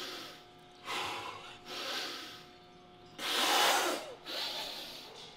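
A man breathing hard and forcefully, about five sharp noisy breaths through the nose and mouth, the loudest about three seconds in. He is psyching himself up just before a heavy bench press set.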